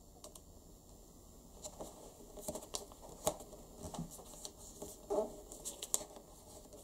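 A sheet of origami paper being folded and creased by hand: irregular crinkling with small crackling snaps as the folds are pressed flat.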